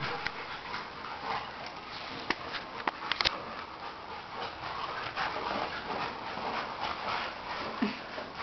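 An English bulldog puppy and a Labrador play-wrestling: the dogs scuffle and make dog noises as they tussle, with a few sharp clicks about two to three seconds in.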